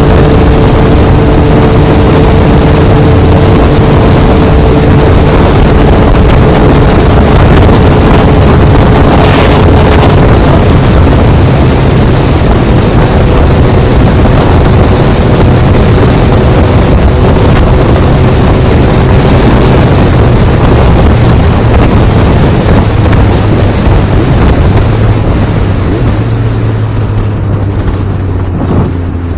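A motorcycle engine runs at a steady cruise under heavy wind rush on the helmet-mounted microphone. Near the end the engine note drops and the sound eases off as the bike slows.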